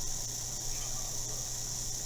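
Room tone: a steady high-pitched hiss with a low electrical hum beneath it, and no distinct sound event.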